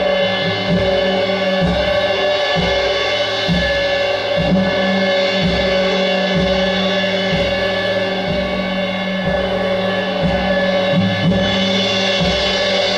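Live experimental percussion: irregular low drum strikes, one or two a second, over a sustained drone of several steady pitches. A cymbal wash comes in near the end.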